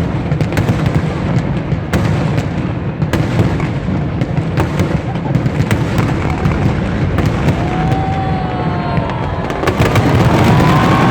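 Fireworks display: a dense, continuous barrage of booms and crackling bangs, with a few whistling tones gliding up and down near the end.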